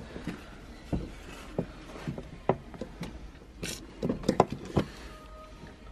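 Scattered light clicks and knocks of a screwdriver and hands working at the plastic fuel-level sender unit on top of a van's diesel tank, coming irregularly with a small cluster of sharper knocks toward the end.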